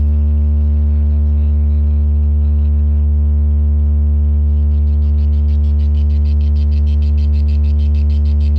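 Large DJ sound system playing one long, deep, steady bass tone as a sound check. About halfway through, a quick ticking pattern of about six ticks a second fades in over it.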